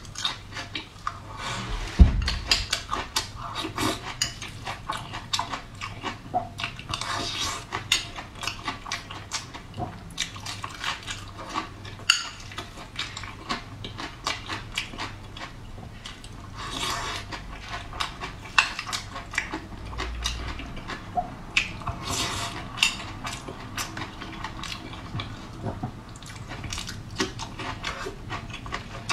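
Close-up eating sounds: crunchy bites and wet chewing of raw green chili and rice, with a spoon clinking against a glass bowl. A dull thump comes about two seconds in.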